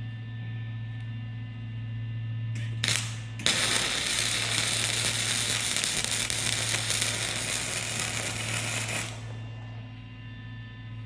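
Electric arc welding: a short arc strike about three seconds in, then a steady crackling hiss for about five and a half seconds before the arc stops. A constant electrical hum runs underneath.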